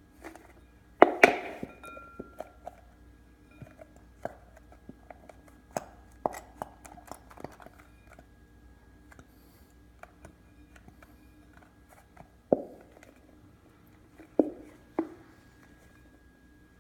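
Scattered knocks and clinks of a school-glue bottle and spoon against a mixing bowl as the last of the glue is emptied out. The loudest pair of knocks comes about a second in, with lighter ticks through the middle and a few sharper knocks near the end.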